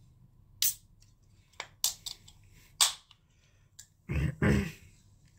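Aluminium soda can being handled and opened: a few sharp clicks of the ring-pull over the first three seconds, then two louder dull bumps about four seconds in.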